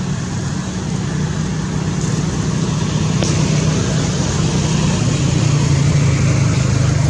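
A running engine: a steady low hum that grows a little louder near the end.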